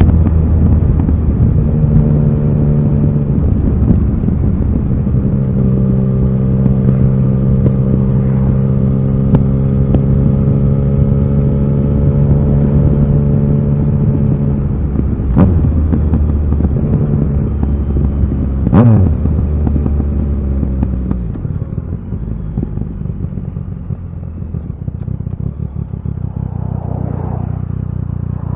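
Yamaha XSR900's inline three-cylinder engine running under way at steady revs, then two quick sharp throttle blips about 15 and 19 seconds in, after which it runs lower and quieter as the bike slows.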